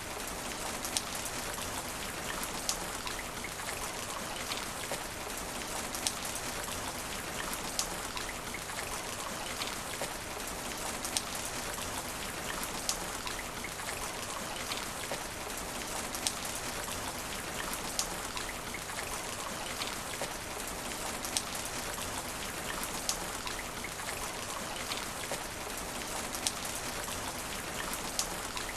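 Steady rain hitting asphalt: a dense, even hiss of drops with sharper single drop impacts standing out every second or two.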